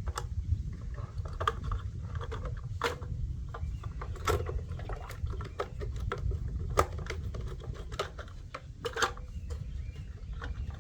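Irregular clicks and knocks of a screwdriver and hands on the plastic body of a Polaris pool cleaner while the axle plate screws are being started, over a steady low hum.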